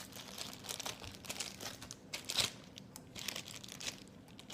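Gooey slime being squeezed and stretched in the hands, giving off scattered small sticky clicks and crackles.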